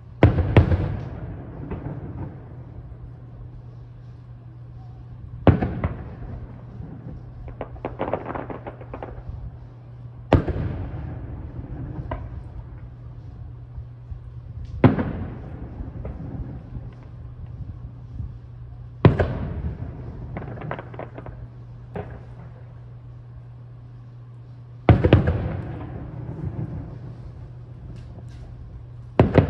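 Aerial firework shells bursting: a sharp boom every four to five seconds, some followed by a spell of crackling. A steady low hum runs underneath.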